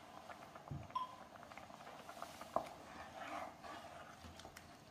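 Faint stirring of a creamy chicken stew with a wooden spatula in a nonstick pan, with a light clink about a second in and a sharp click about two and a half seconds in.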